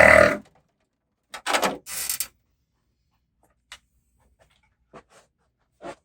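A power drill driving a screw stops about half a second in. Two short bursts of metallic clatter follow, then a few faint clicks of hardware and tools being handled.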